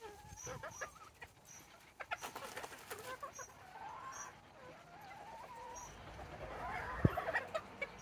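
Bantam chickens clucking, with a wavering, drawn-out call in the middle, and a sharp knock about seven seconds in.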